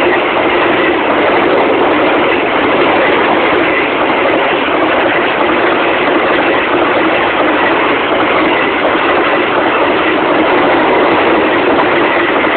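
Freight train of container flat wagons passing close by: the loud, steady noise of wagons and wheels running on the rails, unchanging throughout.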